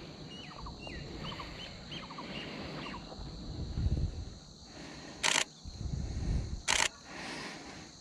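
DSLR shutter firing: two short bursts of rapid shots about a second and a half apart, from a Nikon D500 with a 200-500mm lens. Small birds give short repeated calls in the first few seconds.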